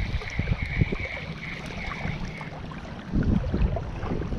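Wind buffeting the microphone in uneven gusts beside open water, with a stronger gust about three seconds in. A faint pulsing high tone runs under it for the first half.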